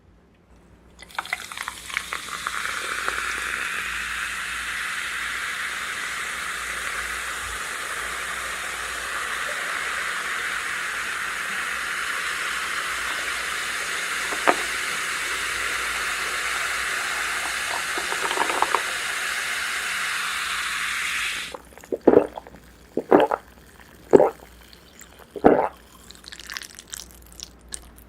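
Food sizzling steadily in a hot pan, cutting off abruptly; near the end, four loud crunchy bites about a second apart, typical of close-miked eating sounds.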